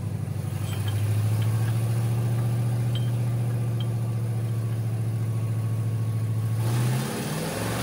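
Rotrex-supercharged 5.3L LS V8 in a Tahoe running steadily at low revs, then near the end its revs begin to climb as the throttle opens for a dyno pull.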